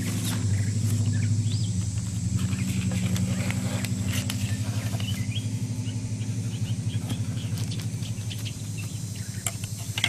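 A steady low engine or motor hum that eases off slightly towards the end, with a few faint chirps and light rustles of a plastic sheet being handled.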